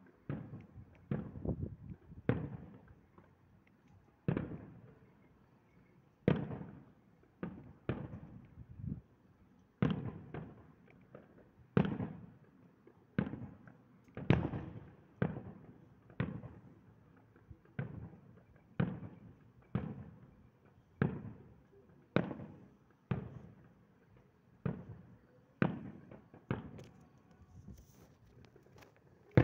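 Distant fireworks display: a steady run of bangs, about one a second, each trailing off over about a second.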